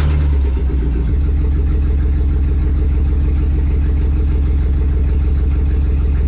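LS V8 engine in a 1954 Chevy idling just after start-up, loud and steady with an even pulsing beat. It is running with a misfire on cylinders 7 and 8, one of them with its plug wire pulled off.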